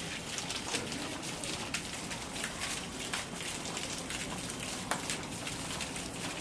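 Many small, irregular clicks and taps over a steady hiss.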